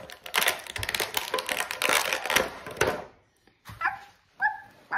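Thin plastic blister packaging crinkling and crackling as toy figures are worked out of the tray, for about three seconds. After a short pause, three short high yelps come near the end.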